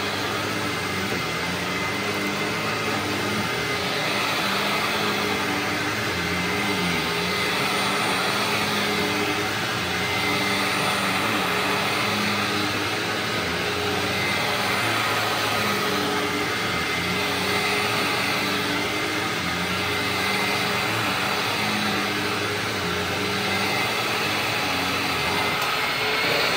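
Hoover WindTunnel Ultra Self-Propelled upright vacuum cleaner running steadily while being pushed over the floor: a continuous motor hum and airflow rush whose pitch and level shift slightly every few seconds.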